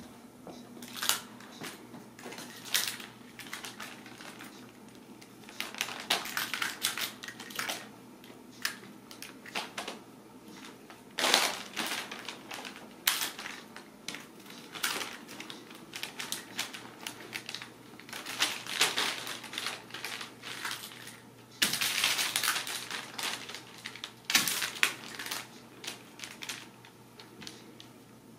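Ragdoll kittens scampering and pouncing on a sheet of brown kraft paper, the paper crackling and rustling in irregular bursts.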